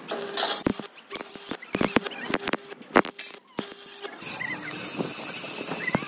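Workshop metalwork clatter: irregular sharp clicks and knocks of metal over a steady background noise, which changes about four seconds in.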